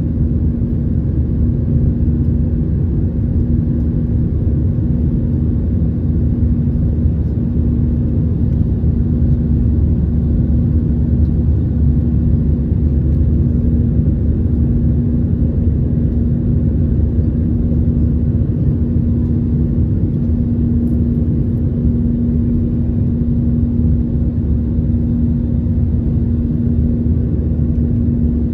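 Steady cabin noise inside an Airbus A320 jet airliner in its climb after takeoff: a loud, even rumble of the engines and the air rushing past, with a steady low hum on top.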